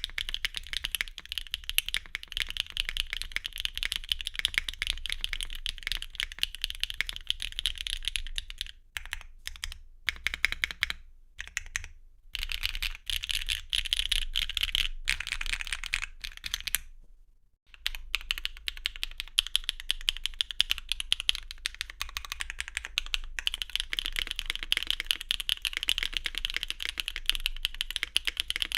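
Fast typing on a mechanical keyboard with a clacky sound: a dense run of sharp, high clicks, broken by a few short pauses about a third and about halfway through.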